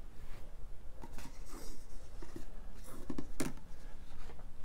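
Cardboard Blu-ray box set packaging being handled and turned over: a few brief scrapes and rustles of card against card and cloth.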